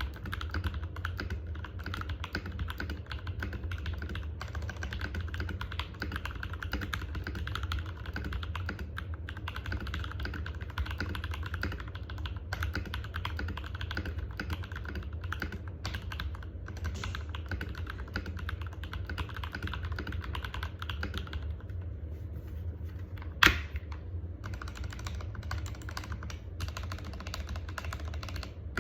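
Typing on an Epomaker EP84 hot-swap 75% mechanical keyboard, a fast, continuous run of keystroke clacks. The typing thins for a moment about three-quarters through, around one sharp, much louder clack.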